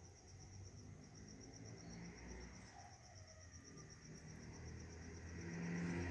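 A cricket chirping in a steady, fast, evenly pulsed high trill, with a faint low rumble underneath.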